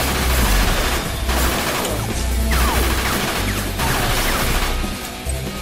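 Dramatic action-score music with heavy low drum hits about once a second, mixed with crashing fight sound effects.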